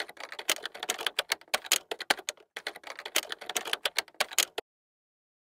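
Rapid clicking of typing keys in two quick runs, with a short break about two and a half seconds in, stopping abruptly.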